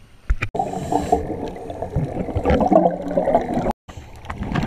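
Water splashing as the microphone goes under the sea surface, then muffled underwater bubbling and gurgling around scuba divers. The sound cuts out abruptly for a moment near the end.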